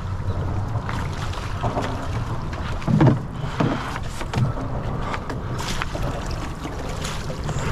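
Wind rumbling on the microphone over water sloshing against a concrete wall, with a few short splashes and low thumps as a hooked red drum thrashes at the surface and is netted. The loudest thump comes about three seconds in.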